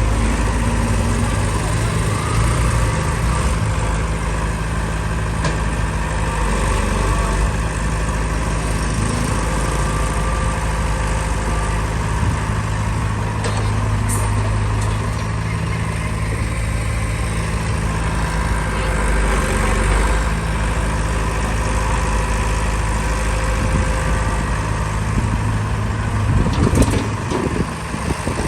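Heavy diesel engine running at a steady speed, with a few brief knocks near the middle and near the end.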